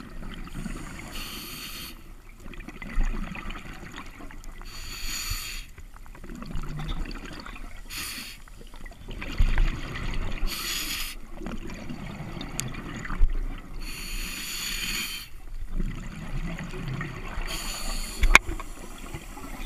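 A scuba diver breathing underwater through a regulator: a hissing inhalation about every three seconds, six in all, each followed by a bubbling rumble of exhaled air. A few sharp knocks stand out among them.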